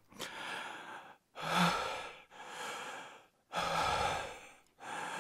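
A person breathing audibly in and out: about five breaths, each under a second long and roughly a second apart.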